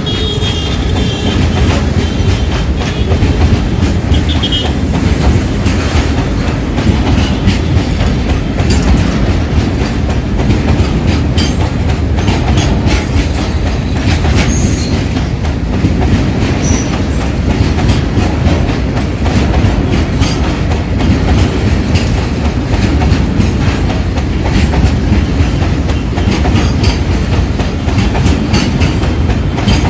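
Long freight train of tanker wagons rolling past: a steady heavy rumble with wheels clicking continuously over the rail joints. A brief high wheel squeal comes near the start.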